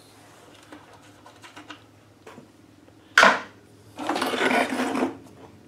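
Plastic blower-motor housing and its screws being handled and worked on a metal bench: faint scattered clicks, a sharp clack about three seconds in, then about a second of scraping.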